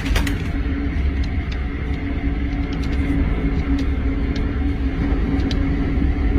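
Steady low rumble of a large tornado, with a few faint clicks scattered through it.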